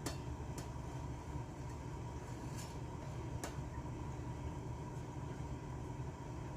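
Steady low background hum with a faint constant tone above it, and a few light clicks near the start and about three seconds in.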